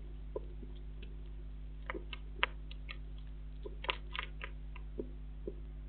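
A hedgehog eating from a bowl: irregular, scattered clicks of its chewing, in small clusters, over a steady low hum.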